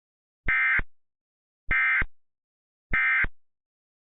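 Emergency Alert System SAME end-of-message code: three short electronic data bursts, each about a third of a second long and a little over a second apart, signalling the end of the alert.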